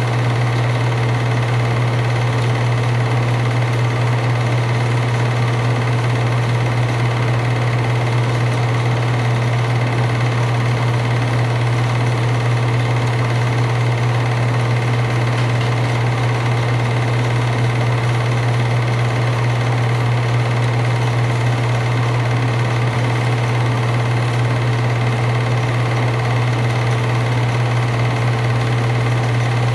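8mm film projector running: a steady, unchanging mechanical hum.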